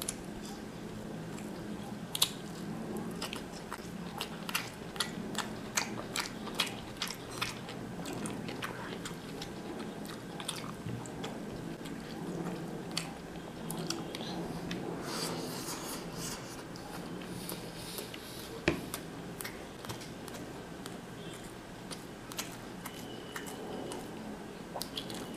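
Close-miked eating: a man chewing and biting mouthfuls of mutton biryani and a cucumber slice, with many sharp wet mouth clicks and smacks scattered throughout, over a steady low hum.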